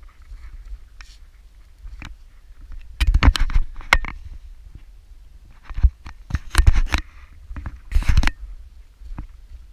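Footsteps of sneakers on a rocky dirt trail, with loud bursts of crunching and scraping from the body-worn camera's mount, about three seconds in, again around six to seven seconds, and near eight seconds, over a low steady rumble.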